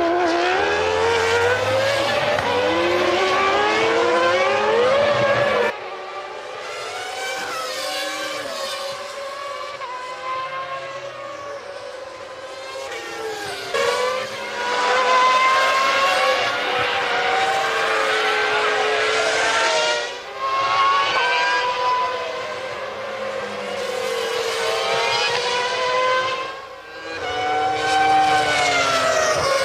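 1997 Formula One cars' engines at racing speed, several at once: high-pitched tones rising and falling through gear changes as the cars pass. The mix changes abruptly about every six to seven seconds.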